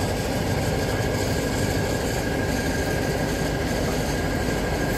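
Large tractor diesel engines running steadily, a low continuous drone with a thin steady whine above it.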